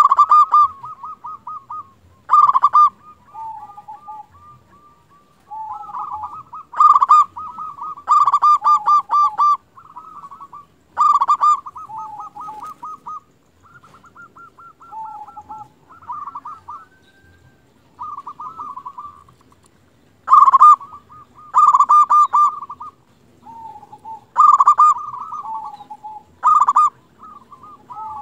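Zebra dove (perkutut) cooing: a run of repeated song phrases of quick, rolling coos, each phrase opening with a loud note and trailing off, a new phrase every couple of seconds.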